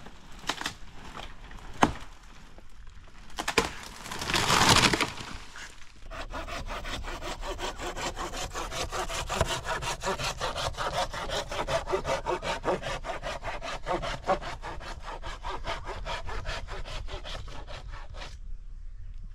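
Dry branches cracking a few times and a louder crash of breaking wood as they are torn from a dead tree, then a hand pruning saw cutting through a dry log in fast, even strokes for about twelve seconds, stopping near the end.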